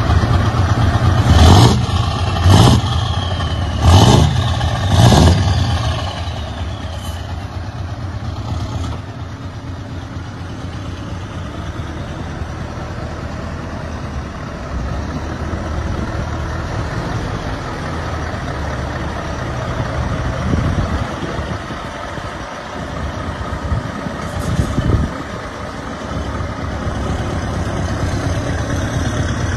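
Scania truck's diesel engine revved in four short, loud bursts over the first few seconds, then running steadily at a lower level.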